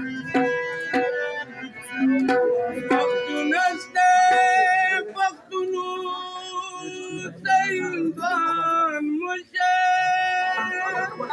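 A man sings a Pashto ghazal in long held notes with wavering vibrato, accompanied by a plucked rubab. The first few seconds are mostly short plucked rubab notes before the voice takes over about four seconds in.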